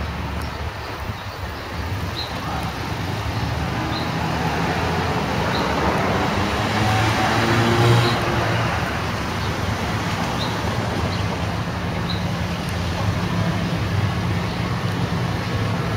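City street traffic noise: a steady wash of passing cars and engines, with one vehicle growing louder to a peak about eight seconds in.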